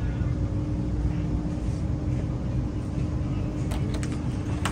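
Steady low rumble of store background noise with a constant hum, and a couple of light clicks near the end as packs of paper plates are handled on the shelf.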